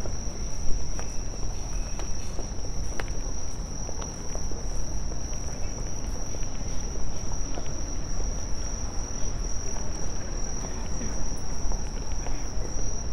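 Crickets singing, a steady high-pitched trill, over a low rumble of city street noise.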